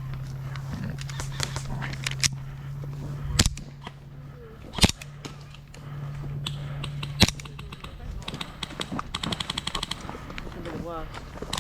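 Airsoft gunfire: three single sharp cracks a second or two apart, then a rapid string of shots near the end.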